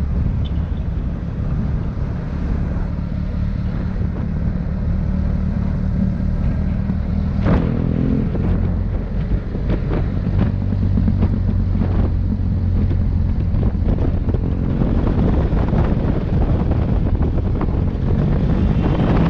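Motorcycle engine running while riding, with wind blowing on the microphone; from about seven seconds in, a run of knocks and rattles.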